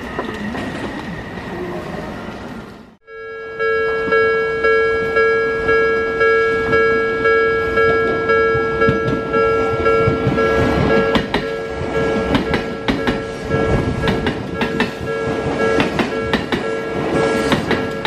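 Japanese level-crossing warning bell ringing in a steady repeating ding, about one and a half strokes a second. An Odakyu electric commuter train runs over the crossing, its wheels clacking over the rail joints from about ten seconds in. A short spell of trackside rumble comes before a cut about three seconds in.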